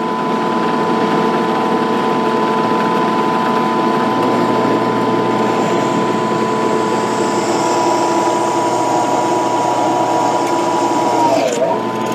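WEN 4214 benchtop drill press running, its 2/3 hp induction motor turning a 1/4-inch bit through a 1/4-inch mild steel bar: a steady whine over a harsh cutting noise. The pitch dips briefly near the end.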